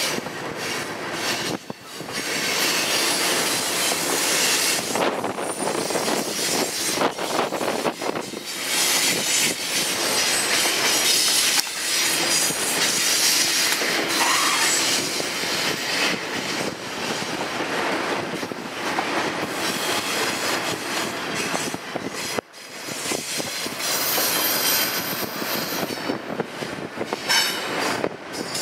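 Double-stack intermodal container train rolling past: continuous steel-wheel noise on the rails with repeated knocks. A high-pitched wheel squeal comes in near the end.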